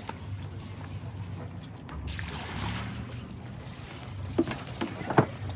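Sailing yacht's inboard engine running steadily at idle as the boat comes alongside its berth. Near the end come a few sharp knocks as crew step off onto the pontoon with a mooring line.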